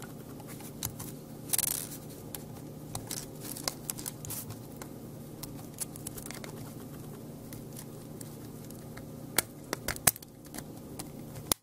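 Small clicks, scrapes and crackles of the plastic shell of a Casio Exilim EX-Z32 compact camera as its two halves are pried and unsnapped by hand, with a louder scrape about a second and a half in and a few sharper clicks near the end.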